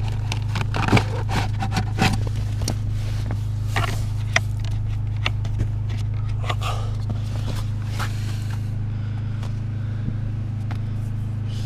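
Old cabin air filter of a Fiat Grande Punto being worked out of its plastic housing behind the glovebox: a run of scrapes, rustles and light plastic knocks, busiest in the first few seconds and thinning out, over a steady low hum.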